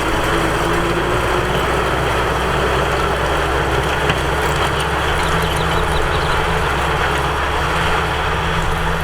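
Tractor engine running steadily, with a constant low drone and a broad noisy hiss above it.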